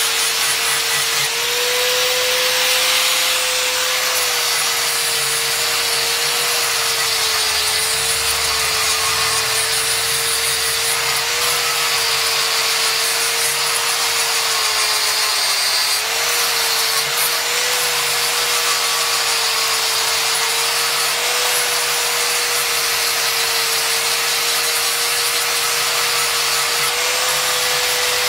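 Handheld angle grinder with an abrasive sanding disc shaping a wooden knife handle. The motor runs steadily with a constant whine that wavers slightly as the disc is pressed in, over a continuous rasping of the disc on the wood.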